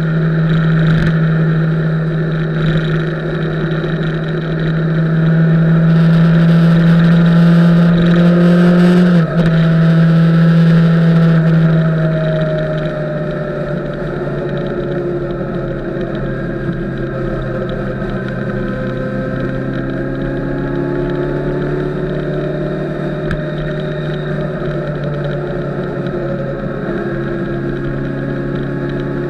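Motorcycle engine running at highway cruising speed, heard from a camera mounted on the bike. It pulls louder for several seconds in the first half, with a brief dip about nine seconds in, then eases off and runs steadier and quieter for the rest.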